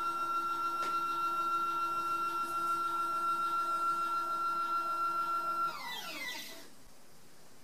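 EQM-35 Pro equatorial mount's stepper motors slewing at high speed: a steady high-pitched whine that slows with a falling pitch about six seconds in and stops, as the mount decelerates to a halt.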